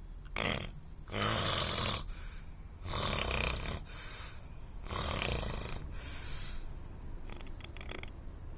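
A person snoring: a series of loud, rasping breaths about every two seconds, fainter near the end.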